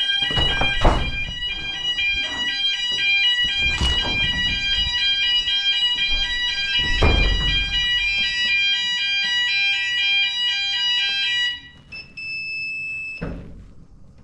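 Electronic fire alarm sounders going off for a weekly test: a loud, rapidly pulsing electronic tone that cuts off about twelve seconds in, followed by a short, steadier higher tone for about a second. Several heavy thumps sound over the alarm.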